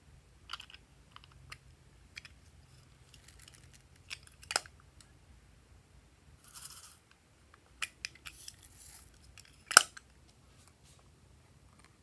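Small hard-plastic clicks and snaps from a plastic toy case being handled, with a sharp snap about four and a half seconds in and a louder one a couple of seconds before the end, and brief soft rustles in between.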